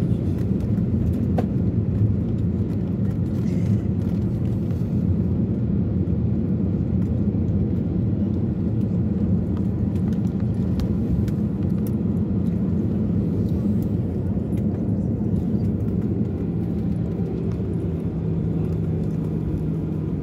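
Cabin noise of an Airbus A320 rolling out on the runway after touchdown, spoilers up: a steady low rumble that eases a little in the last few seconds as the aircraft slows.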